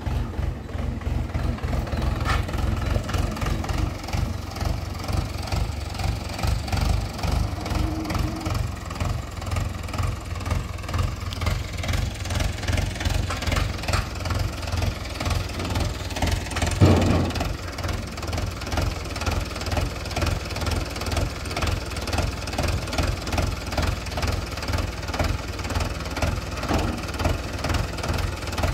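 Mahindra 475 DI tractor's four-cylinder diesel engine running steadily at idle with an even diesel knock, driving the rear-mounted log loader. About two-thirds of the way through there is one brief louder surge.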